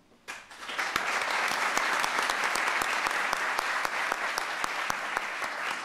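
Audience applauding. The clapping builds up over the first second and then holds steady.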